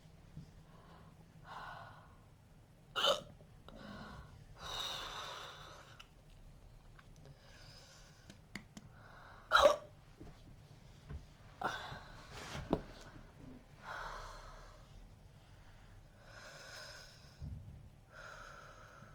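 A person hiccuping: several sharp hiccups a few seconds apart, the loudest near the middle, with breaths drawn in between.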